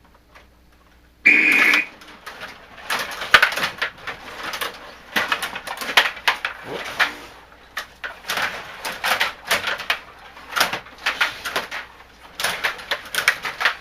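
Ice hockey video game sound effects: a short high tone about a second in, then an irregular run of clicks and scraping noises from skates, sticks and puck during play.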